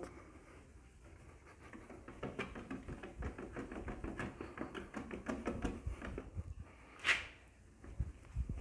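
A wad of cotton waste rubbed hard back and forth over an acrylic car headlight lens, a quick scrubbing rhythm of many short strokes, to buff polishing compound off the sanded lens. It is interrupted by one brief sharper sound about seven seconds in and a couple of soft knocks near the end.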